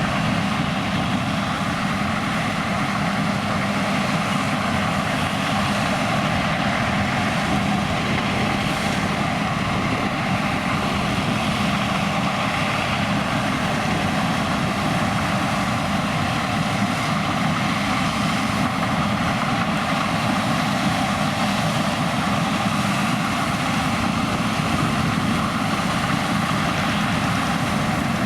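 John Deere X9 1100 combine harvester running steadily while harvesting, a constant engine-and-machinery drone with a steady hum.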